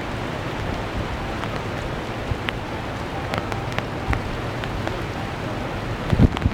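Steady rain falling, with many scattered drops tapping close by and a single low thump about six seconds in.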